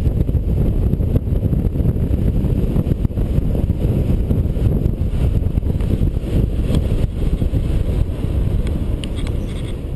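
Heavy wind rumble on a helmet-mounted GoPro's microphone from the airflow of a paraglider in flight. The rumble eases a little near the end as the glider slows to land, with a few faint clicks.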